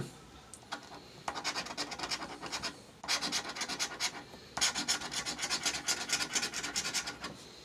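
Scratch-off lottery ticket being scratched: quick, rapid rasping strokes in three runs, with short pauses between them.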